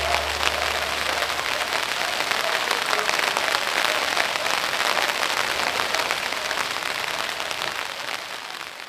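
Rain falling: a dense, steady patter of many small drops, fading out near the end.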